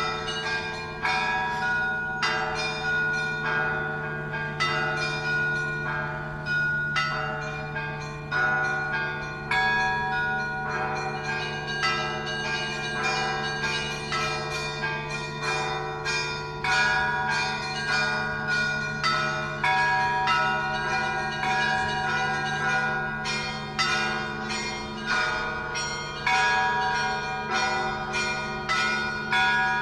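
Russian Orthodox church bells rung by hand in a continuous peal: small bells strike several times a second over a steady low hum from the larger bells.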